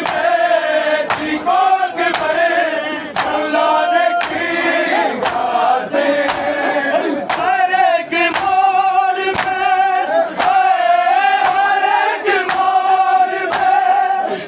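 Men chanting an Urdu noha in a mournful melody, kept in time by matam: many palms striking chests together in a steady beat, about once every half second or so.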